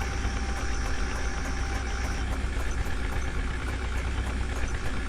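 Diesel engine running steadily at low revs, with a faint thin whine that stops about two seconds in.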